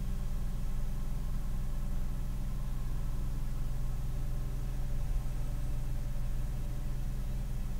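A vehicle engine idling steadily, a low even hum heard from inside a stopped car's cabin.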